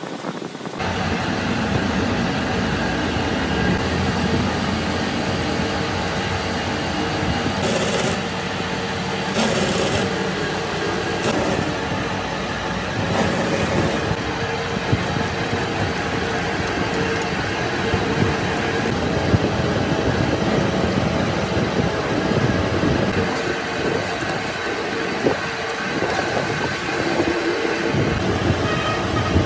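Metal lathe running with its four-jaw chuck spinning while a cutting tool machines the end of a steel camshaft piece: a steady machine hum, with several short, high scraping bursts of the cut between about eight and fourteen seconds in.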